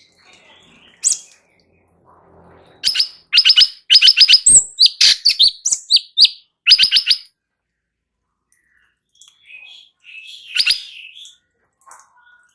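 Cucak cungkok singing: loud bursts of rapid, sharply repeated chattering notes through the middle, with quieter calls near the end.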